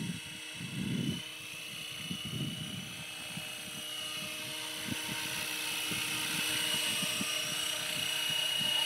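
Swift 16 RC helicopter's motor and rotor running with a steady high whine that grows louder as the helicopter comes in and sets down. Gusts of wind buffet the microphone in the first few seconds.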